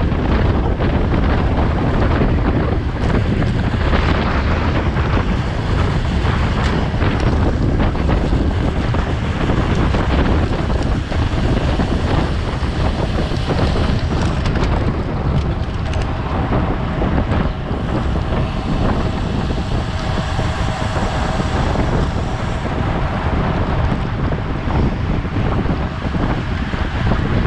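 Heavy, steady wind buffeting the microphone of a bicycle-mounted action camera riding at speed.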